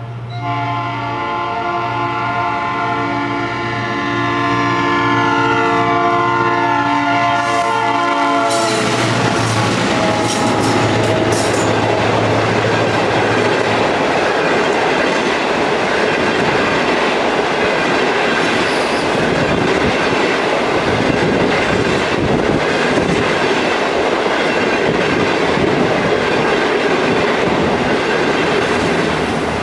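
Diesel-hauled passenger train passing close by. The locomotive's air horn sounds a steady chord for about eight seconds over the low drone of the EMD J16CW and CNR CKD8H diesel engines, then cuts off as the locomotives go by. The coaches then roll past with loud, steady wheel clatter on the rails.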